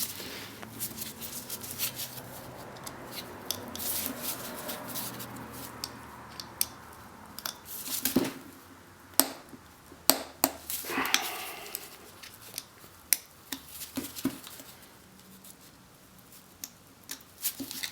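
Metal winch parts and hand tools being handled during reassembly of a Warn XL3000 winch: scattered sharp clicks, clinks and knocks at irregular intervals.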